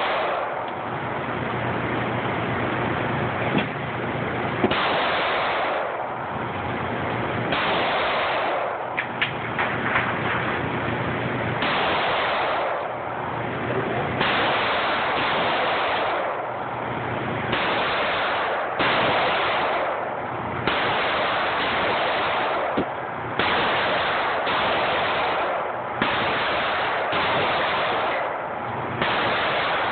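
Gunfire at a shooting range: a dense, continuous din of shots that swells and drops every second or two, with a few sharper cracks standing out.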